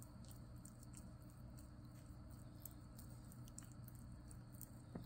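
Near silence: faint, irregular wet clicks from a dog's mouth over a low steady hum.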